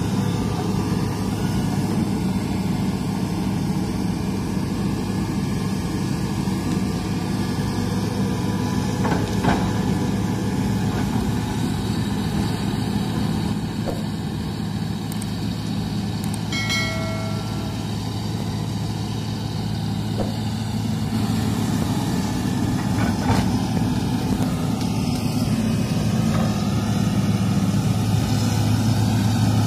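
Hitachi crawler excavator's diesel engine running steadily as the machine works on a muddy slope, getting a little louder near the end. A brief high-pitched tone sounds about halfway through.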